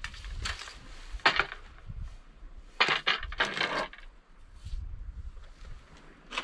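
Small fishing gear being handled and set down on rock, giving a few short clinks and rattles, the densest cluster about three seconds in, over a low rumble of wind on the microphone.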